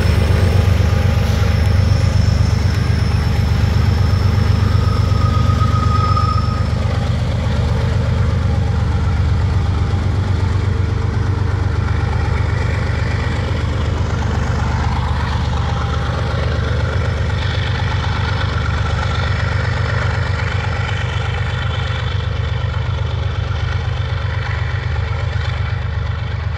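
Diesel freight locomotives running with a steady, deep engine rumble. A thin, high wheel squeal from the rails fades out about six seconds in.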